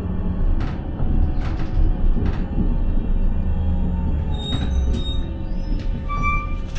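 Steady low rumble of a vehicle in motion, with a few knocks and, in the last two seconds, high squealing tones.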